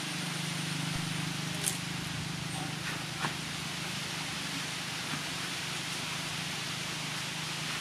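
Steady background hiss with a low hum, and light clicks twice in the first half (a fainter one later) as the blue PVC pipe stock of a homemade bowfishing rig is handled and knocked.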